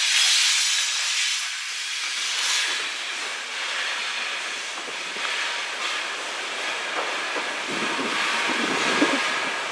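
Cars of a CN train rolling past, steel wheels hissing on the rails with a few faint clicks.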